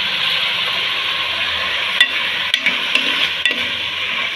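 Chopped vegetables, freshly added chayote among them, sizzling in hot oil in a pan while a spoon stirs them. From about two seconds in, the spoon knocks sharply against the pan a few times.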